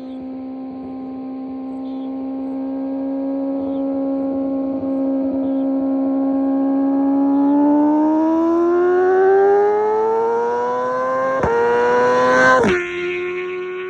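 Kawasaki ZX-6R inline-four sport bike with an M4 GP19 exhaust on a flyby. The engine note holds steady and grows louder as it approaches, then rises in pitch as it accelerates. There is a quick upshift about eleven and a half seconds in, and the pitch drops sharply as it passes and heads away.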